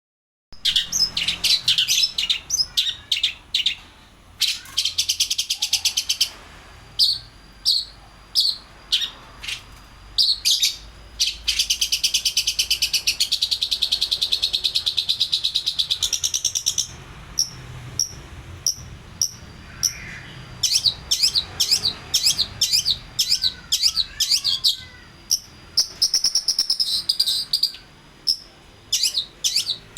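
Long-tailed shrike (pentet) singing: runs of sharp, rapidly repeated high notes and chatter, with one long, fast trill of several seconds in the middle.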